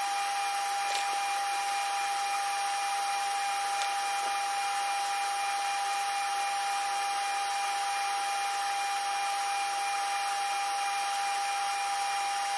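Small electric motor running steadily, with a constant high whine.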